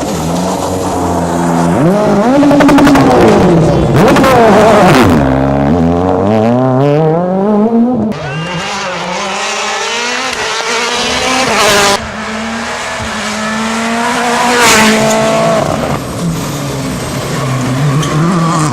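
Rally cars driven hard on a stage, engines revving up and dropping sharply through gear changes as they pass. The sound comes as several short clips spliced together, cutting abruptly about 8, 12 and 16 seconds in.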